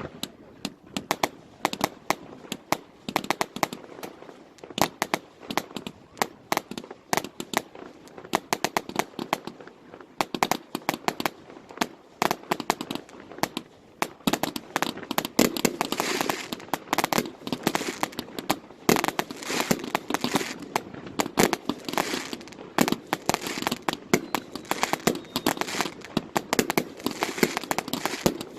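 Fireworks finale: a rapid barrage of aerial shell bursts, bangs following one another several times a second with crackling between them, growing denser and fuller about halfway through.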